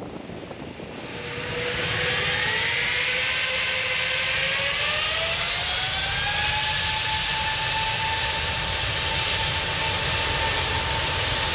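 Jet airliner engine spooling up: a whine that climbs in pitch for about five seconds and then holds steady over a rushing roar.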